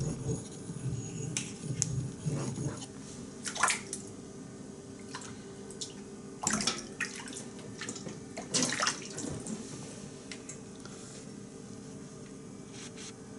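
A steel knife blade stroked back and forth on a wet whetstone for the first few seconds, then water splashing in a sink a few times, a couple of seconds apart.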